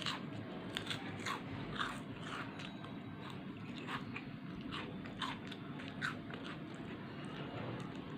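Someone chewing crisp snack chips: a string of sharp, irregular crunches at close range.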